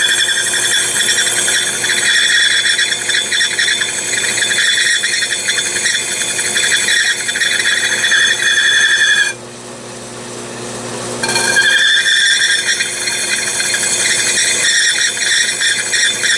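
Stone engraving wheel on a lathe spindle grinding into the glass of a vessel sink, a loud steady grinding with a high-pitched whine. About nine seconds in the glass comes off the wheel for about two seconds, leaving only the quieter hum of the spindle, then the cutting resumes.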